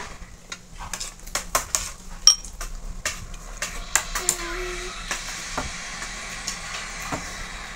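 Light clinks and taps of a ceramic bowl and glass tabletop as a toddler eats rice with her fingers, most of them in the first few seconds. A short hummed note from the child about four seconds in.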